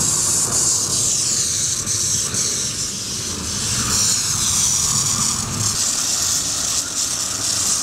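Homemade propane burner fed with unvaporized liquid propane, burning as a long jet of flame with a loud, steady hiss over a low rumble. The liquid gas reaches the flame before it can vaporize, which makes the flame 1–2 m long.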